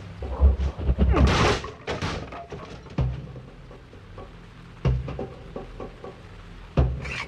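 Heavy blows landing in a fight scene's sound effects: a dense flurry of thuds and scuffling in the first two seconds, then single heavy thuds about three, five and seven seconds in.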